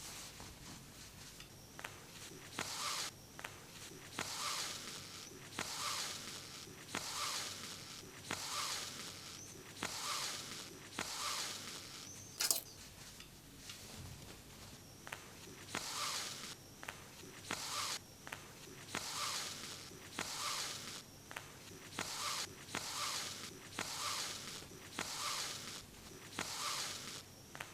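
Sewing thread being pulled through denim by hand, stitch after stitch: a rasping swish repeated steadily about every second and a half, with one sharp click about halfway through.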